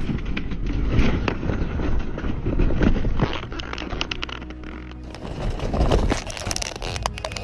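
A small skydiving plane crash-landing, heard from inside the cabin: a deep rumble of the fuselage hitting and scraping along the ground, full of rattling, knocks and bangs.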